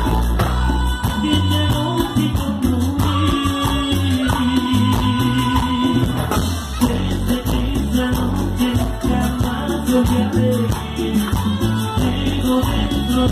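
A live band playing a Latin dance tune through a PA: timbales and a rattle keep a steady beat under saxophones, with a man singing into a microphone.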